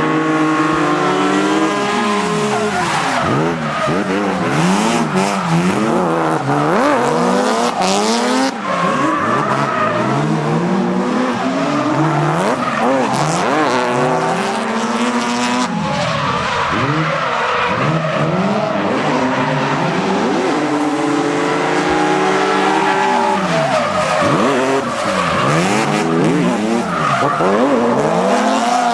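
Drift car engines revving hard, rising and falling in pitch again and again as they are worked through slides, with tyres skidding on the tarmac.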